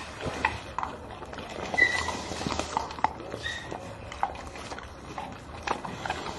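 Several dogs' claws clicking and tapping irregularly on a hard floor as they mill around close by, with a couple of short high-pitched squeaks.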